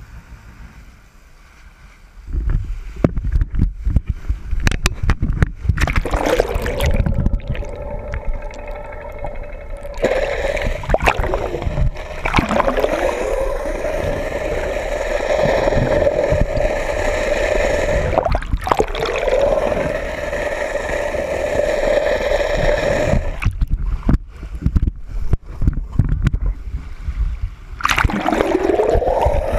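Water rushing and gurgling around a camera held underwater beside a moving sportfishing boat, setting in loudly about two seconds in. A steady whine from the boat's engines and propellers carries through the water, dropping out briefly twice and rising in pitch near the end.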